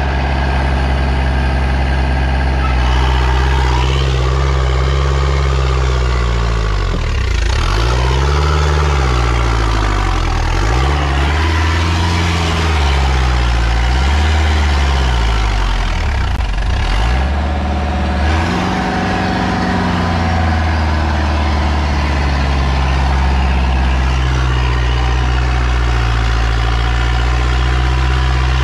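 A 4x4's engine running under load, heard from inside the cabin as the vehicle is pulled up a steep muddy grade on a tow line. Its pitch rises and falls in several swoops, mostly in the middle of the stretch, then steadies.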